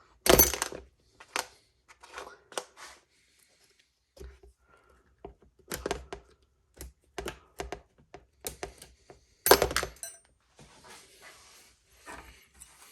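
Scattered sharp metallic clicks and knocks of fuel injectors being worked out of an LS V8's fuel rail by hand, the loudest knock about nine and a half seconds in, followed by a soft rustling.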